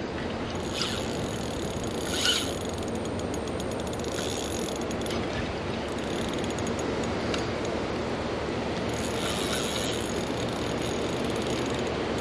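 Spinning reel being cranked against the pull of a hooked alligator, its gears whirring and clicking in spells, loudest about two seconds in, over a steady rushing noise.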